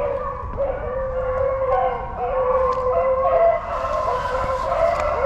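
Pack of beagles baying, several dogs at once in long, overlapping howls.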